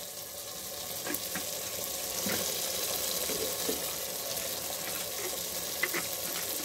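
Ground masala paste frying in oil in a metal kadhai: a steady sizzle with a few scattered small pops.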